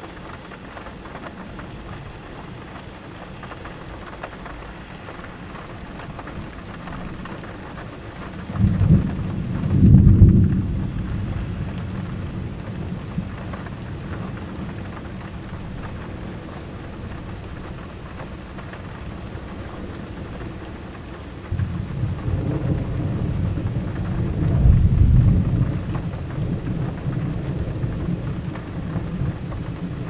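Thunder rumbling twice over steady rain: a short, heavy roll about nine seconds in, and a longer one from about twenty-two seconds that swells to its loudest near twenty-five seconds.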